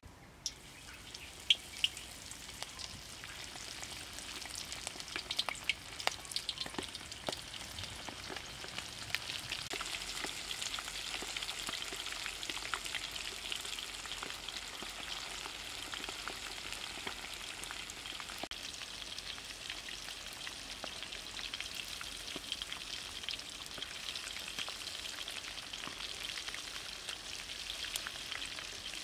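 Breadcrumb-coated frog pieces deep-frying in hot oil: a dense sizzle with crackling pops. A few sharp pops come in the first two seconds, then the sizzle grows louder over about ten seconds and holds steady.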